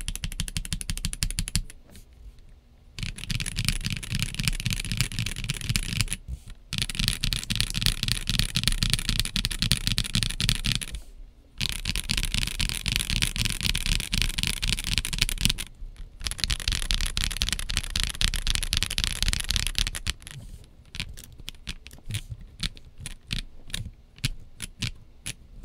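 Typing on a sound-dampened Kit Adam R2 Lego-brick mechanical keyboard with S² linear switches and OEM-profile PBT keycaps. Fast continuous keystrokes come in runs broken by brief pauses, and the last few seconds turn to slower, separate key presses.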